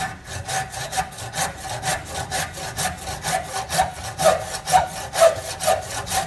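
Hand saw cutting through a pitanga (Surinam cherry) tree branch in steady back-and-forth strokes, about two a second.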